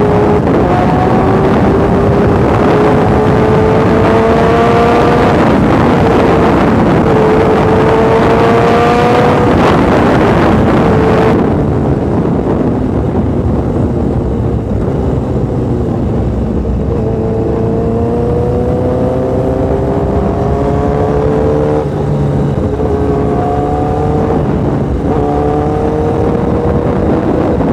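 Honda CBR1000RR's inline-four engine pulling under way. Its note climbs slowly through each gear and drops at each upshift, several times over. Heavy wind rush on the microphone eases off sharply about eleven seconds in.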